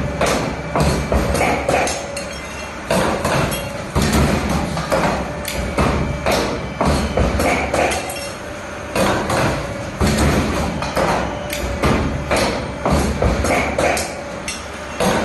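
R-clamp forming machine cycling, its tool slides clacking and thumping against the die as they bend each clamp, in a cycle of knocks that repeats every few seconds over a steady hum.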